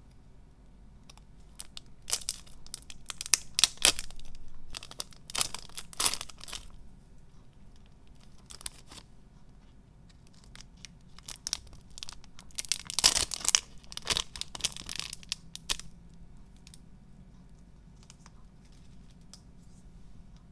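Thin plastic wrapper of a Kabayaki San Taro snack packet being torn open and crinkled by hand, in three spells of tearing and rustling with quiet gaps between.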